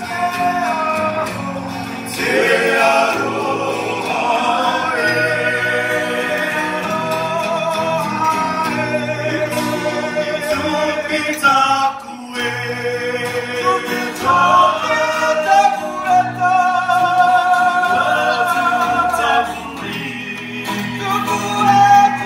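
A group of men sings in harmony, led by one voice on a microphone, over two strummed acoustic guitars.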